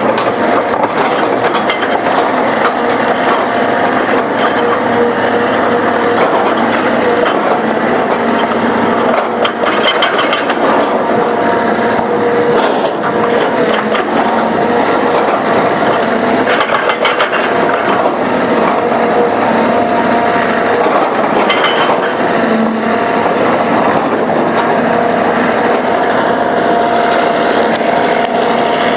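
Komatsu PC200 hydraulic excavator working: its diesel engine and hydraulics run steadily with a constant whine, broken by scattered clanks and rattles.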